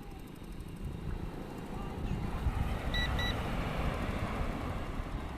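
Strong sea wind buffeting the microphone with a low rumble, and two short electronic beeps in quick succession about three seconds in.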